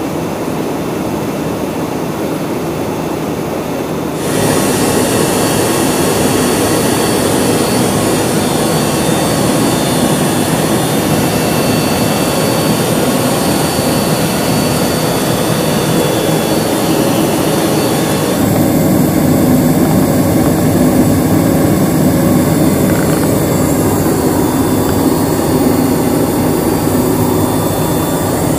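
Steady jet engine noise inside the cabin of a Yakovlev Yak-40, the three engines mounted at the tail. It steps up abruptly, louder and hissier, about four seconds in, and changes tone again about two-thirds of the way through, becoming fuller and less hissy.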